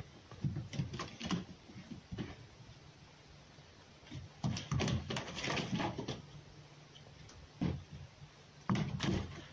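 Irregular bursts of scuffling, rustling and knocking from a fox scampering and pouncing on a straw-strewn dirt floor as it plays with a tennis ball. The busiest flurry comes about halfway through, with shorter ones early on and near the end.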